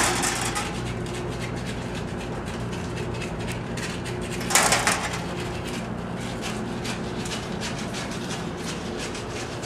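Steel sheet and plastic sheeting handled by hand: a steady crackling rustle, with two louder scrapes, one at the start and one about four and a half seconds in, over a steady low hum.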